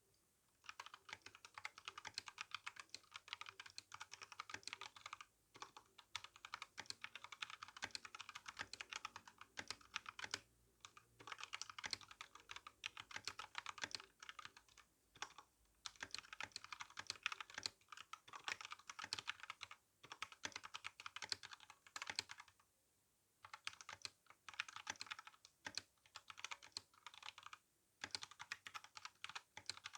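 Typing on an RK61 mechanical keyboard with brown tactile switches and GSA keycaps: rapid key clacks in runs broken by brief pauses.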